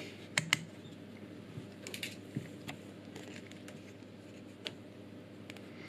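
Faint, scattered clicks and light taps, a close pair just after the start and a few more around two seconds in and near the end, over a faint steady background.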